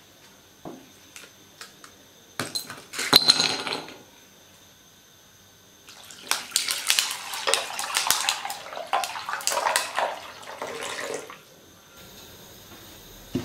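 Ice cubes clattering into an empty glass bowl, a quick cluster of hard clinks. About six seconds in, water is poured from a glass jug over the ice for about five seconds, splashing, with the ice clinking against the glass.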